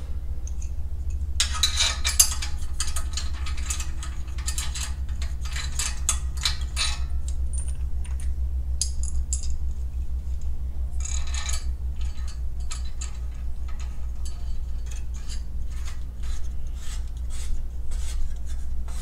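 Small metal hardware clicking and clinking as a bolt, washer and plastic adjuster handle are handled and fitted onto a steel welding-table frame, in irregular clusters. A steady low hum runs underneath.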